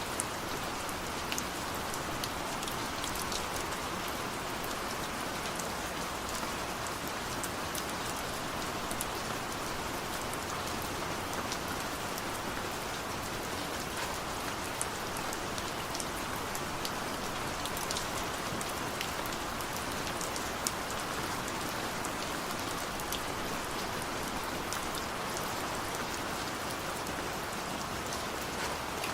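Heavy rain falling steadily, a constant hiss with many small drop ticks scattered through it.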